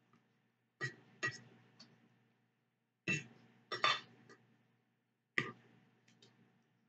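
Cutlery clinking and tapping against a plate of tortellini while eating: about eight short, sharp clinks spaced irregularly, with quiet in between.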